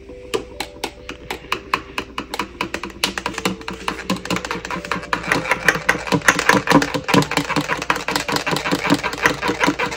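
A long metal spoon clinking rapidly against the inside of a tall glass while stirring whipped dalgona coffee down into milk. The clinks come several a second and grow faster and louder about three seconds in.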